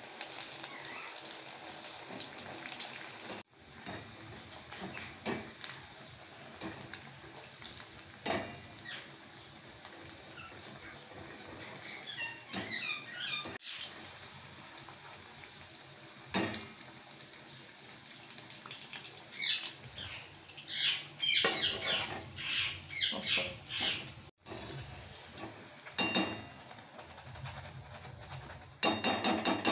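Semolina dough balls deep-frying in oil in a metal wok, the oil sizzling steadily with bursts of crackling. A wire skimmer clinks and scrapes against the pan as the balls are turned and lifted out, with a quick run of clinks near the end.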